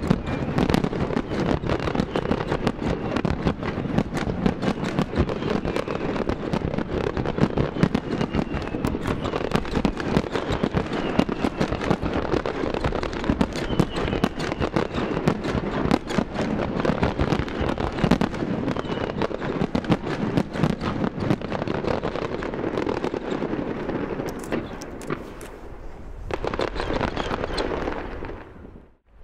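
Fireworks display: a dense, continuous barrage of bangs and crackling from bursting aerial shells, dying away near the end.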